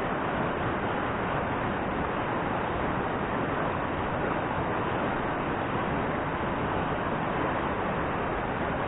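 River water rushing past, a steady, even noise with no breaks.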